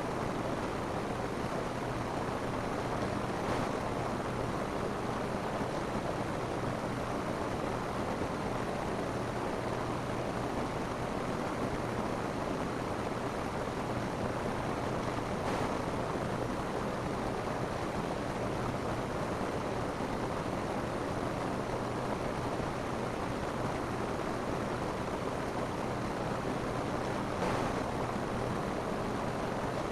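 Steady rain falling on a roof, an even hiss that holds at the same level throughout.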